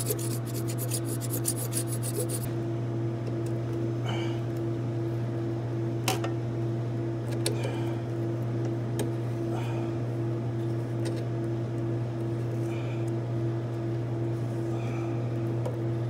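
Blade sawing rapidly inside a brass pipe nut for the first couple of seconds, cutting out sheared-off pipe threads, then occasional single scrapes and clicks as the metal is chipped at. Under it all runs a steady machinery hum.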